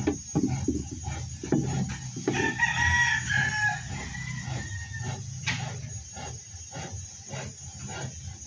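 A rooster crows once, a call of about a second and a half starting a little over two seconds in, over a fast, even background beat.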